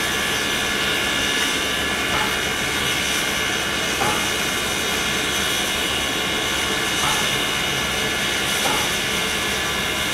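Soviet P36 steam locomotive standing with steam venting: a steady, loud hiss with several steady whining tones running through it.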